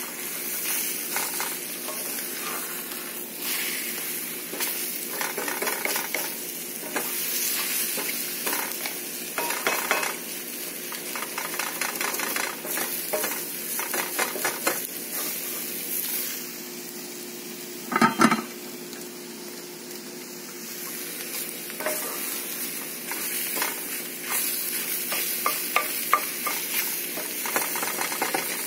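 Scrambled eggs sizzling in a cast-iron skillet while a wooden spatula stirs and scrapes them across the pan, with one brief louder knock about eighteen seconds in.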